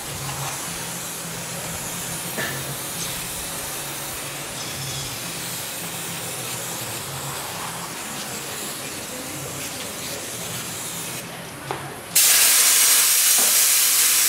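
Aerosol can spraying a steady hiss of flammable spray around the rim-to-tire gap of a stretched tire. About 12 s in a much louder hiss of compressed air starts from an air-hose chuck on the tire's valve, inflating it to seat the bead.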